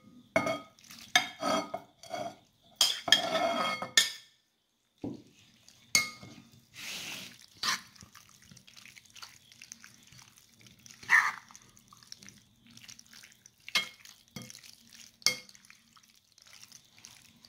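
Utensils clinking and scraping against a bowl as strips of roasted bell pepper are put into an oil-based chermoula marinade, with scattered sharp clinks and a longer scrape about three seconds in.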